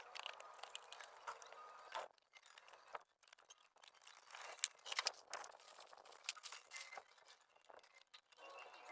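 Faint, scattered clicks and rustles of plastic scooter parts being handled, with a few sharper ticks about two, five and six seconds in.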